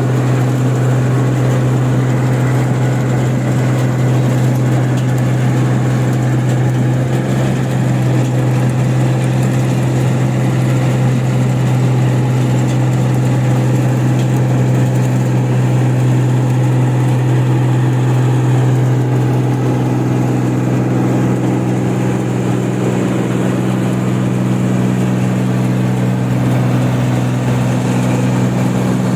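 Engine of a paddy machine running steadily at constant speed, a continuous low drone with no revving.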